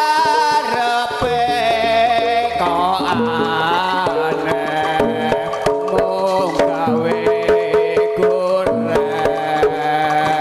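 Live Javanese jaranan music: kendang hand drums beating a quick rhythm over sustained gamelan tones, with a bending melody line on top. The drum strokes stand out more in the second half.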